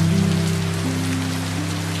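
Steady rain falling, a constant hiss with scattered drops ticking. Under it, soft music of held low notes that shift to new pitches a few times.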